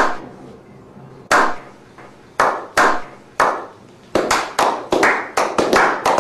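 A small group of men slow-clapping. Single hand claps come at first about a second apart, then speed up to several a second near the end, each with a short ring after it.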